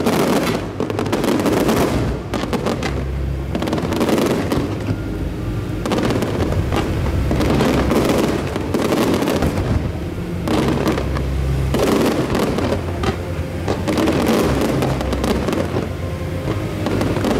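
Aerial fireworks bursting one after another, a continuous run of bangs and crackling from shells going off overhead.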